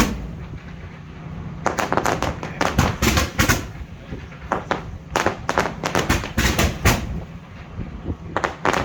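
Fireworks display going off in three volleys of rapid bangs and crackles, with short lulls between them, over a steady low rumble.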